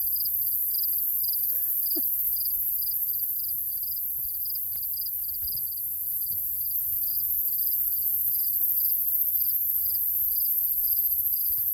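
Crickets chirping in an even rhythm, about three chirps a second, over a steady high-pitched hiss, with a few faint ticks.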